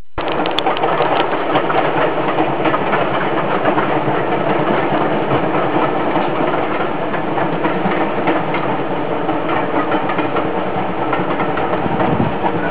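Steam locomotive working hard as it hauls a train of carriages, its exhaust chuffing steadily and rapidly.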